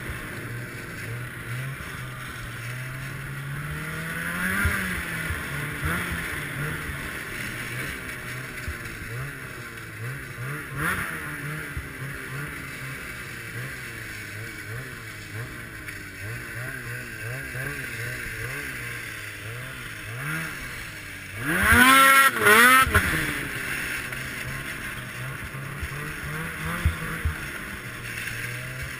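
Ski-Doo Summit X snowmobile's two-stroke engine running under way, its pitch rising and falling with the throttle, with a hard burst of revs about three-quarters of the way through.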